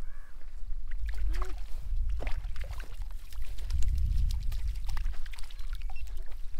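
Canal water flowing and splashing under a steady low rumble, with scattered small clicks and a few brief high calls.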